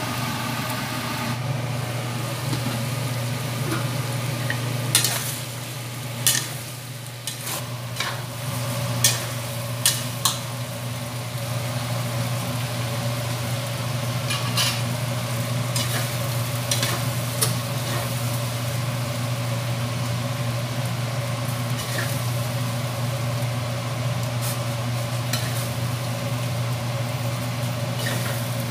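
Duck pieces sizzling as they are stir-fried in a steel wok. A metal spatula scrapes and clanks against the pan now and then, over a steady low hum.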